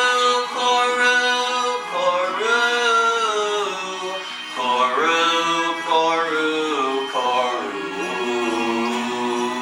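Christmas carol music: a sung melody of long, sliding held notes over instrumental backing.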